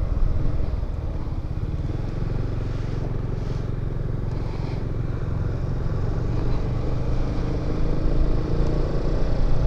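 Yamaha XMAX 250 scooter under way, its engine running steadily beneath a low rumble of wind and road noise. The engine note rises a little in the second half.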